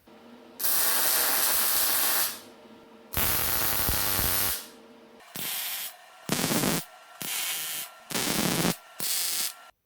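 Electric arc welding on thin 2 mm and 3 mm steel: a crackling hiss in two runs of about a second and a half, then five short bursts. The short, separate welds keep the heat down so the thin clamped steel does not warp.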